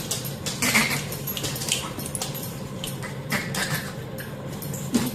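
A pet dog moving about: quick light clicks and taps throughout, with a few brief louder sounds.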